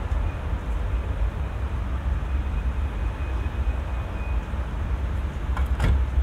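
Steady low outdoor rumble under a soft hiss, with one brief sharp sound near the end.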